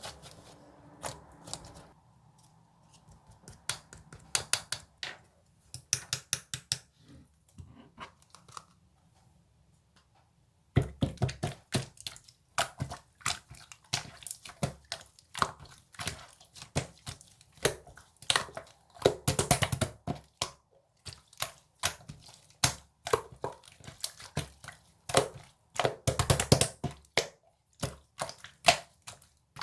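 Close-up irregular crinkling, tapping and crunching noises. They are sparse at first, pause briefly, then come thick and fast from about a third of the way in, with two louder bursts of crackling.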